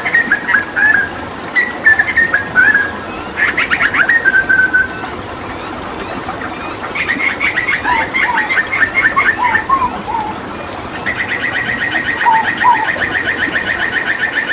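Hooded butcherbird singing: short chirped phrases at first, then from about seven seconds in fast trilled runs with a few lower whistled notes beneath, ending in a long, even rapid trill.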